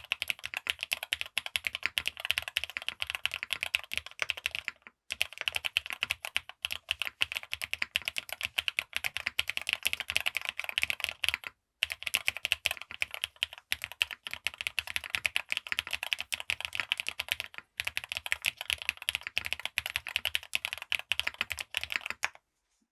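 Fast, continuous typing on a Swagkey Shelby80 custom mechanical keyboard. It is gasket-mounted with an aluminium plate, fully foamed, and fitted with lubed, filmed frankenswitches (Cherry housings with Kailh cream stems) and PBT keycaps. The typing breaks off briefly three times and stops just before the end.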